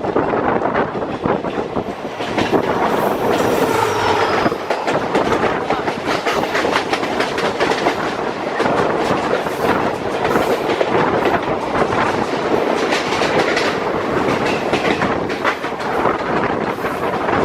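A train running past close by, its wheels clattering rapidly over rail joints, with a brief thin wheel squeal about three seconds in.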